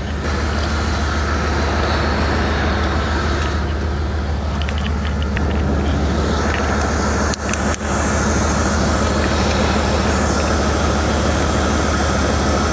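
Truck engine idling steadily, with no load on it: it has not bogged down, the sign that the booster cables are not yet connected. There are two short clicks about seven and a half seconds in.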